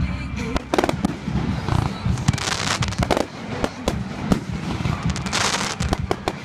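Aerial fireworks shells bursting in a rapid, irregular series of sharp bangs, with two longer rushes of noise about two and a half seconds in and again near five and a half seconds.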